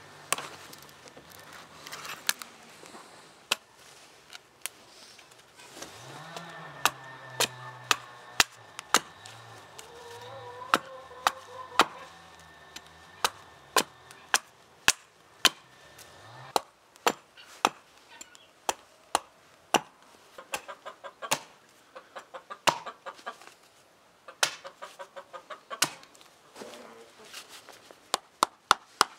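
Repeated sharp wooden knocks of a knife chopping into a green branch on a wooden chopping stump, then being struck on the spine with a wooden baton, the strikes coming quicker near the end. A chicken clucks in the background through the middle.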